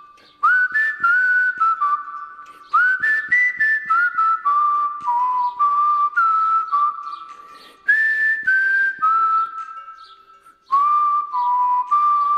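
Music with a whistled melody: phrases of held, gliding notes over light percussive taps.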